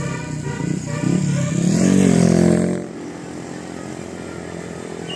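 A passing bus sounding its multi-tone telolet horn over its engine, the pitches bending and gliding upward. About three seconds in it drops sharply to a lower, steady engine and road noise.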